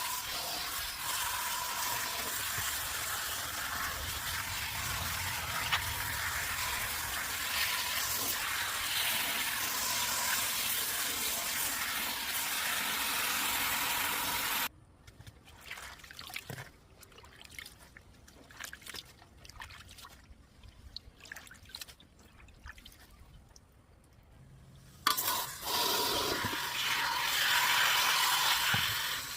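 Water running from a tap, a steady hiss that cuts off suddenly about halfway through. Scattered light knocks and clatter follow, and the water runs again about four seconds before the end.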